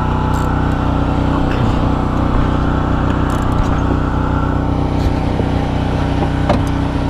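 An engine or motor running at a steady speed, with a constant hum, and a few light clicks and taps of tools about one and a half, five and six and a half seconds in.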